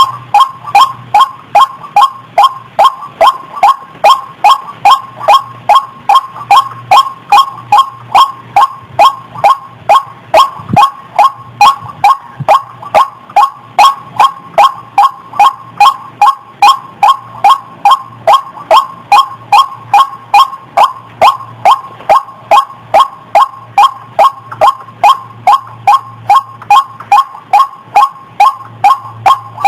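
Female white-breasted waterhen calling a fast, unbroken run of short, identical 'kruak' notes, about two and a half a second, as used for a trapping lure.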